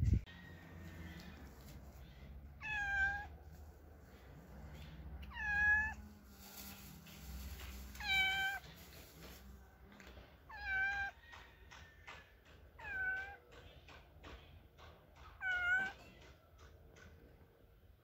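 Domestic cat meowing repeatedly, six short meows about every two and a half seconds, while food is held out to it: begging to be fed.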